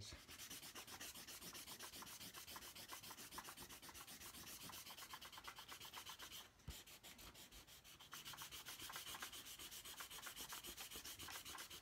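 Big white eraser rubbing back and forth on drawing paper, erasing pencil lines, a faint, quick, even scrubbing of about four strokes a second, with a short break a little past halfway.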